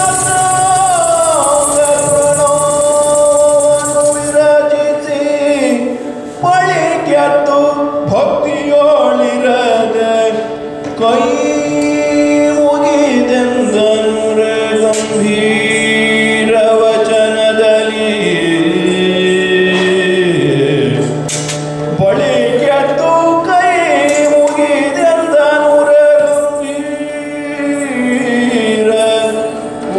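Yakshagana bhagavata singing: a male voice holding long, gliding melodic notes, with occasional drum strokes from the maddale and chande.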